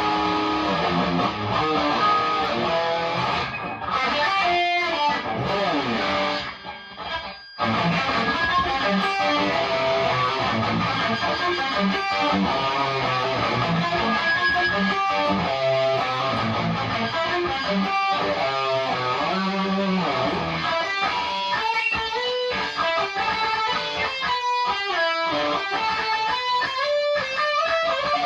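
Electric guitar with overdrive distortion: a Chibson Les Paul Custom played through an MXR EVH 5150 overdrive pedal into a Marshall DSL40 combo amp. It cuts out briefly about seven seconds in, and near the end long sustained notes glide in pitch. The amp feedback is bad despite the noise gate being turned up.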